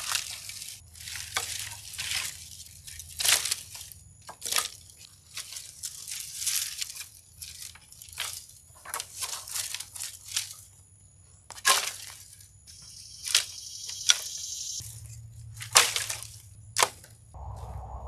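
Dry dead branches and twigs rustling, crunching and snapping as they are tossed and pressed by hand onto a brush pile, in an irregular string of sharp cracks.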